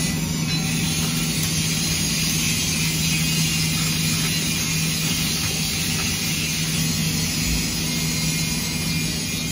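Steady low machine hum with a constant hiss, unchanging throughout.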